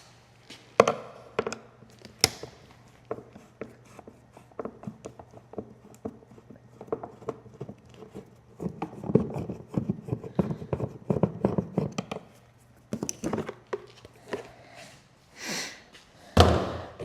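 Hand tools and loose motorcycle parts being handled during disassembly: a run of small clicks and knocks, busier in the middle, with a louder knock near the end.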